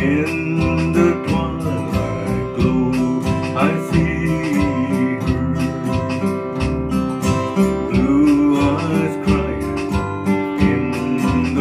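A slow country song: strummed acoustic guitar over a steady beat, with a man singing.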